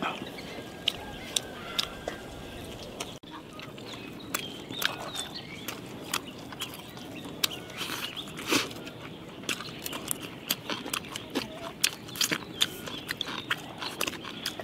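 Close-up mouth sounds of people chewing and smacking on soft steamed buns, many short wet clicks, with farm fowl calling now and then in the background.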